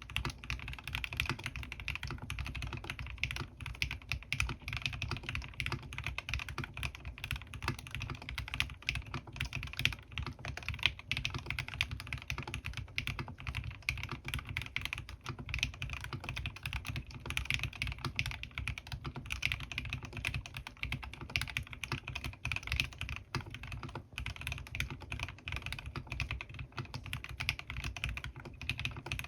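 Continuous fast typing on a custom mechanical keyboard with lubed Gateron North Pole linear switches and PBT keycaps, a dense run of deep, muted keystroke clacks.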